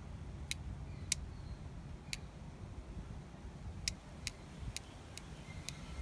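Sharp metal clicks of a Leatherman Wave+ multitool being handled: its pliers jaws and handles click as they move, about eight clicks at uneven intervals over a steady low background rumble.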